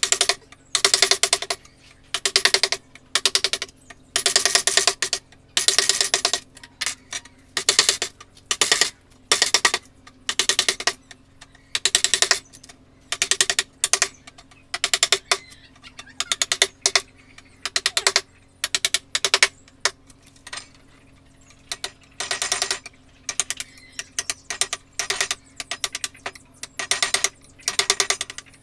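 Carving chisel being tapped into wood with quick light mallet blows. The blows come in short bursts of rapid clicking knocks with brief pauses between them.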